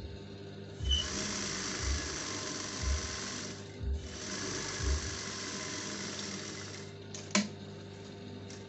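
Juki industrial sewing machine stitching, running steadily in two stretches with a short stop just under four seconds in, then stopping about seven seconds in, followed by a single sharp click.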